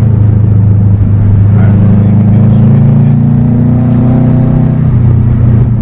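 2012 Subaru WRX's turbocharged flat-four engine running, its pitch climbing a little and then dropping about five seconds in.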